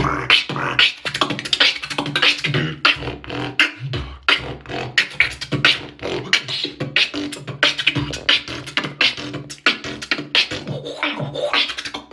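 Solo beatboxing freestyle: fast vocal percussion of sharp, clicking hits, with short low humming bass tones in between.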